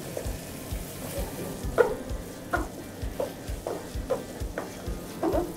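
Wooden spatula scraping and knocking against a frying pan in a quick series of strokes as minced Shamo Rock chicken is broken up and stir-fried, with a quiet sizzle underneath.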